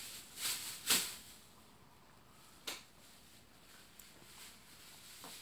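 A football being kicked: three sharp smacks, the second, about a second in, the loudest.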